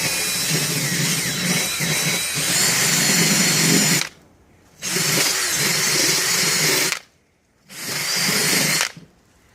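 Handheld power tool running in three bursts, about four seconds, then two, then one, with short stops between, as it clears slag off fresh 7018 stick welds.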